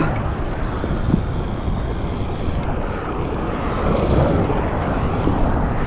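Wind buffeting the microphone of a chest-mounted camera on a moving BMX bike, a dense rumbling noise that swells a little about four seconds in.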